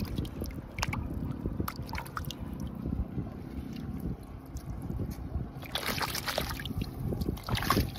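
Shallow seawater splashing and dripping as hands dig a moon snail out of wet sand, with small clicks and scrapes, over a steady low wind rumble on the microphone. The splashing grows louder about six seconds in and again near the end.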